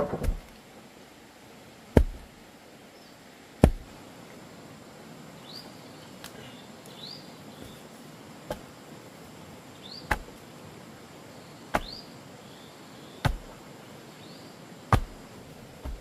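About eight sharp knocks, most about a second and a half apart with a pause in the middle, each with a low thump. Between them a bird gives short rising chirps.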